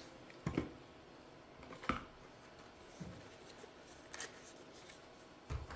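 Faint handling noises of products and packaging: five or so short, soft taps and rustles a second or so apart.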